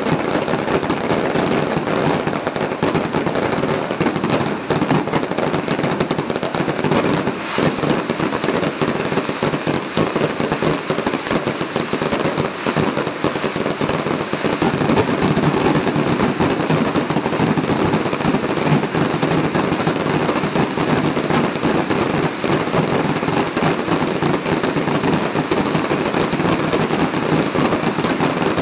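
Aerial fireworks going off in a dense, continuous barrage: overlapping bangs and crackling with no pause.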